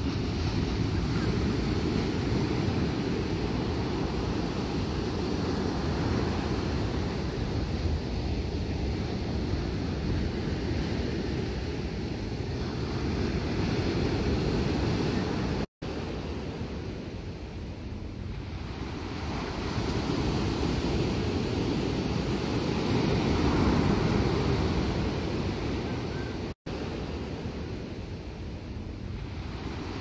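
Ocean surf breaking and washing up the beach in slow swells that rise and fall every several seconds, with a low wind rumble on the microphone. The sound cuts out for an instant twice.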